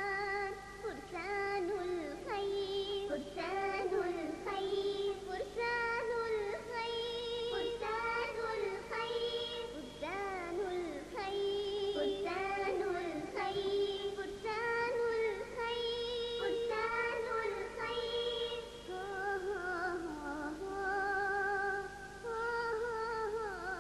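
Film theme song: a high voice sings a slow melody with vibrato on the held notes, over steady background music.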